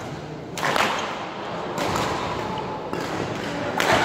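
Badminton rackets striking a shuttlecock in a rally: three sharp hits a second or two apart, echoing around a large hall.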